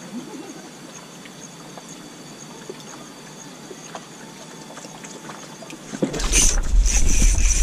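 Faint water and raft ambience with a few small ticks. About six seconds in, a sudden loud rumble of handling with metallic rattling and clicking begins as a fishing rod and reel in the rail holder are grabbed.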